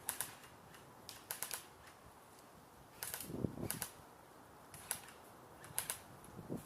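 Airsoft guns firing, heard as short bursts of sharp clicks and snaps about every second or so, with a cluster of quick shots around a second and a half in.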